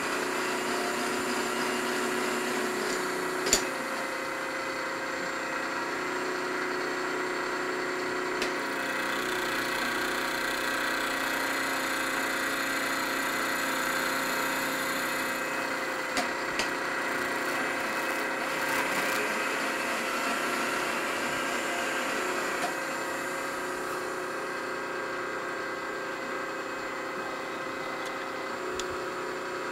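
Milling machine spindle running with an end mill cutting an aluminium casting: a steady machine whine with several fixed tones and the hiss of the cut, with a few sharp ticks.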